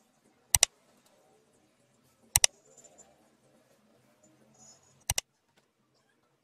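Three sharp double clicks, each a pair of quick ticks, roughly two seconds apart, with faint handling rustle between them.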